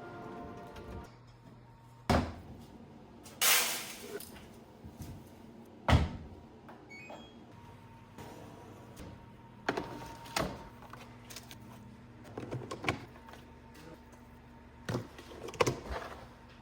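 Kitchen work: scattered knocks and thuds of cupboard doors and things being set down, with a brief rushing clatter about three and a half seconds in, over a steady low hum.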